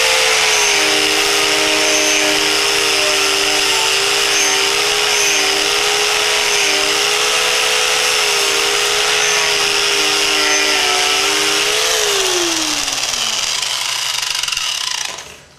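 Angle grinder fitted with a wire cup brush, running and scrubbing rust and old paint off a rusty metal finial. A steady motor whine sits over a harsh wire-scratching hiss. Near the end the whine falls away as the motor winds down, and the sound then stops abruptly.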